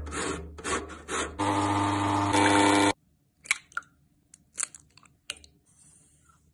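An orange rasped against a stainless steel box grater, first in short strokes and then in a steadier, louder run, until it stops about three seconds in. Then come a few sharp taps and cracks of eggshells broken over a glass bowl, and a faint hiss of sugar poured in near the end.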